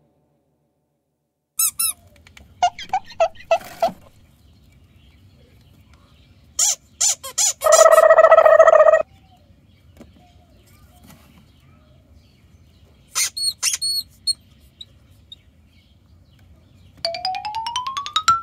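Squeaky toy sound effects: clusters of short high squeaks and chirps, a loud held squeak lasting about a second, and a rising whistle glide near the end, over a faint low hum.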